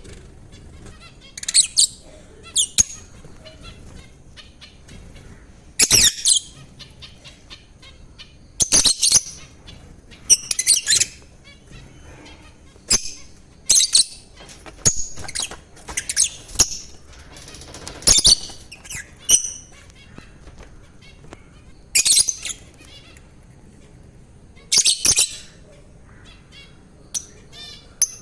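Pet lovebirds calling: short, sharp, high-pitched chirps and squawks in irregular bursts, a second or a few seconds apart.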